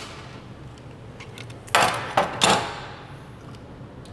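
Steel valve-train parts clanking against metal during small-block Chevy cylinder head teardown: three sharp metallic clanks close together about two seconds in, each ringing briefly.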